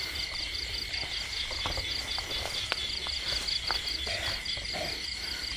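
Crickets and other night insects chirping: a rapid, even pulsing trill over a steady high drone, with a few faint ticks.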